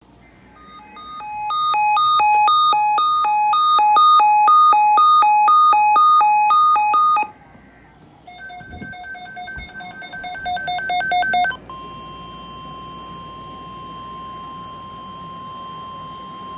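Electronic alarm beeps rapidly alternating between two pitches for about seven seconds, then after a short gap a faster run of beeps that grows louder. About twelve seconds in, a single steady NOAA Weather Radio warning alarm tone of about 1050 Hz begins and holds, signalling that a weather warning or watch message follows.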